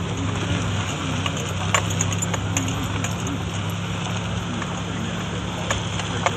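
A vehicle driving slowly over a rough dirt road: a steady low engine hum under a constant crunch and rumble of tyres on dirt and gravel, with a few sharp clicks and rattles from the bumpy ride.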